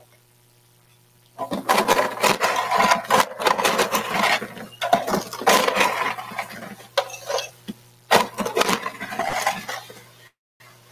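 Ice cubes rattling and clattering in quick, irregular strokes as they are scooped up for an iced coffee drink, starting about a second and a half in and going on until near the end.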